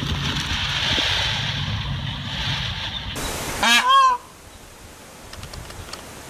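A peacock giving one loud, short honking call about three and a half seconds in, made of quick arching notes, over a steady low hum and hiss.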